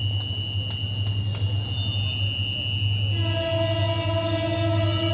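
An approaching train's horn sounds one long, steady blast that starts about three seconds in. Under it are a steady high-pitched tone and a low hum.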